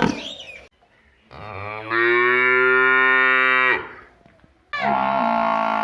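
Cattle mooing: one long, drawn-out moo of about two and a half seconds, then after a short pause a second moo begins near the end.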